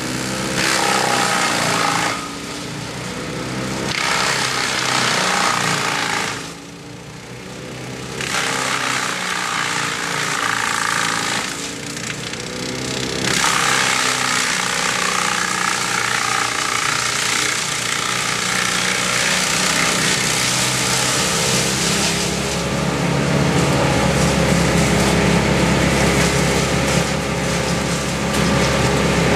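Engine-driven tree-removal power equipment running hard, its pitch shifting as it revs. Loud cutting noise runs through it, easing off briefly a few times.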